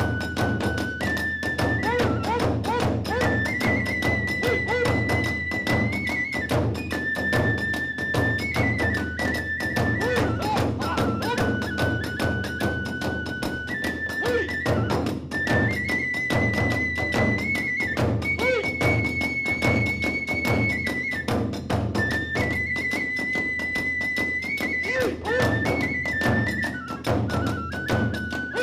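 Hiroshima kagura hayashi: a high bamboo flute plays long held notes that step up and down, over fast, continuous drumming and the clash of small hand cymbals.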